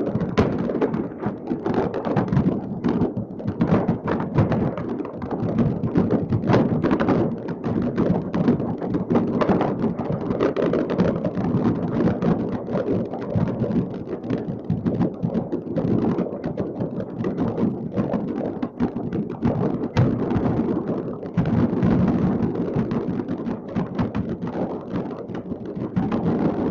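Many fireworks going off at once across a city, their bangs and crackles running together into a dense, unbroken rattle with no pauses.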